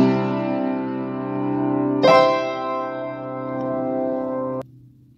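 Upright piano playing the closing chords of a piece: a chord at the start, then a final chord about two seconds in that is left ringing and stops suddenly near the end.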